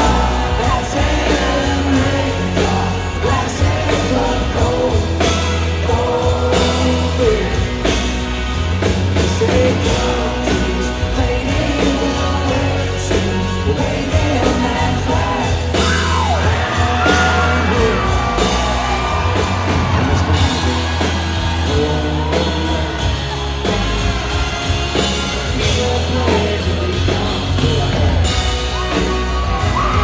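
Live country-rock band playing at full volume, acoustic guitar strummed over drums and bass, with crowd yells and whoops over the music.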